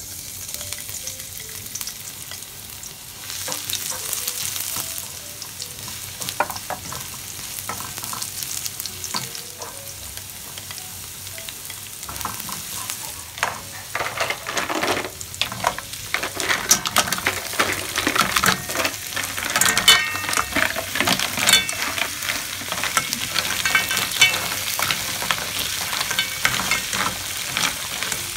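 Minced garlic, ginger and onion sizzling in hot oil in a wok, stirred with a spatula. From about halfway the sizzle gets louder and is broken by frequent sharp clicks as mussels in their shells are stirred in, knocking against the pan and each other.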